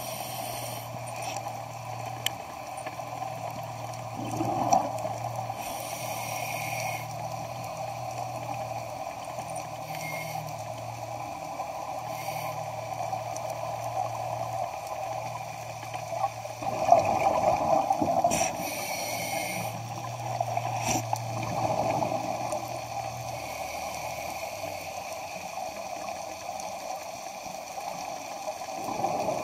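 Underwater sound of a scuba diver's regulator breathing: swells of bubbling exhalation every several seconds, loudest about seventeen seconds in, with a few short hissing inhalations. A steady low hum sits underneath and fades out about three quarters of the way through.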